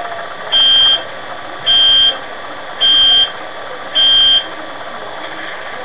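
Loud electronic beeps, four in all, each about half a second long and a little over a second apart, over the steady idling hum of a LokSound-equipped model Class 66 diesel locomotive standing still.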